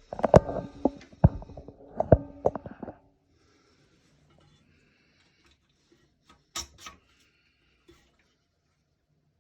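A quick run of clicks and knocks, some ringing briefly, as a new toilet flapper and its plastic fittings are worked into place against the porcelain tank, for about three seconds. Then it is quiet apart from two more clicks about two-thirds of the way through.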